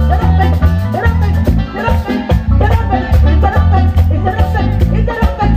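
Live band playing an upbeat Latin-style Pentecostal chorus, with a heavy bass line and a steady, driving beat on hand drums and drum kit.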